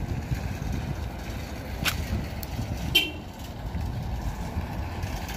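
Parking-lot noise: a steady low rumble of traffic and wind. A sharp brief sound comes about two seconds in, and a second later a short high car toot, the loudest sound here.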